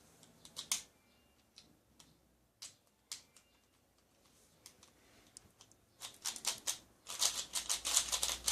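Plastic 3x3 speedcube clicking as it is handled and turned. A few separate clicks come first, then a fast run of turns from about six seconds in.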